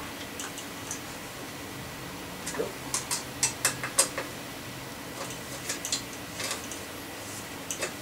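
Sharp metal clicks from a hand tool working the brake's mounting bolt on a mountain bike frame, coming in irregular runs, busiest about three to four seconds in.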